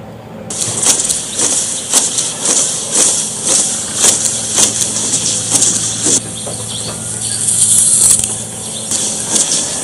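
Engine idling in a steady low hum. From about half a second in, a loud high hiss with sharp clicks about twice a second sounds over it.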